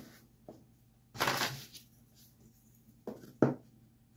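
Bench grinder being shifted by hand on its plywood riser block: a short scrape across the wood about a second in, then two sharp knocks a little after three seconds as a steel rule is set against the wheel.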